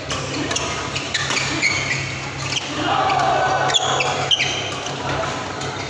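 Badminton doubles rally: a string of sharp racket-on-shuttlecock hits at irregular intervals, with shoes squeaking on the court mat, echoing in a large sports hall.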